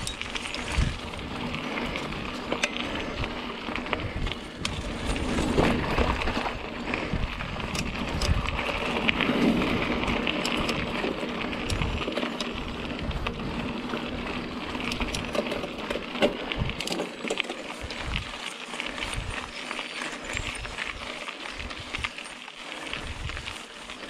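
Mountain bike ridden along a dirt singletrack, a steady noise of tyres on the trail with frequent small rattles and knocks from the bike over rough ground, over an irregular low rumble.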